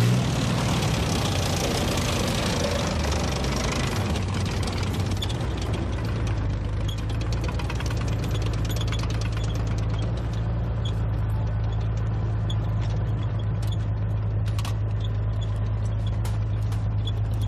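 A heavy vehicle engine idling steadily with a deep hum and rapid knocking, with extra hiss in the first few seconds that then settles.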